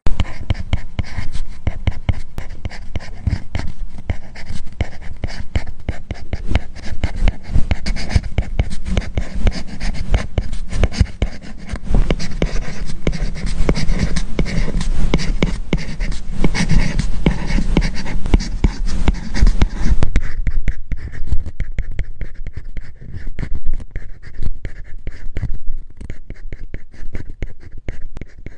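Apple Pencil nib writing on an iPad's paper-like matte screen protector: a dense, continuous run of scratchy strokes and small taps. About twenty seconds in the strokes turn duller and less hissy.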